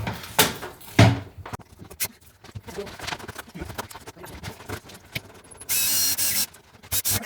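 Cordless drill driving a mounting screw down through the cabinet into the top of an over-the-range microwave: one short run of under a second near the end. Before it come a few knocks and clicks.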